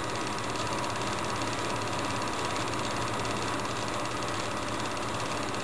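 Steady mechanical whirr of a running Super-8 film projector, even and unchanging, with a faint steady hum.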